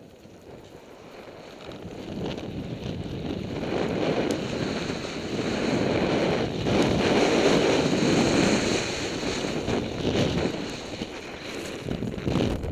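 Wind rushing over the camera microphone while skiing downhill, growing louder over the first few seconds as speed builds, with the skis running over the snow underneath.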